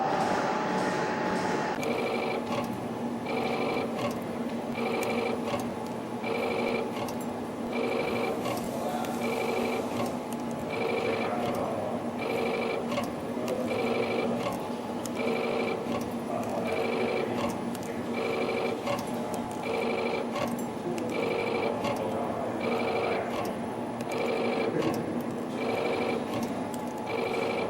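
CNC flat-wire ring forming machine running in production, forming tiny wave springs. It repeats a mechanical cycle about every second and a half, about 40 parts a minute, and each cycle carries a short high ringing whir over a steady machine hum.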